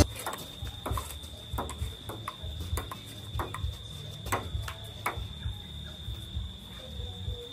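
Table tennis rally: the celluloid ball clicking sharply off the paddles and the table, a hit every half second or so in an uneven rhythm.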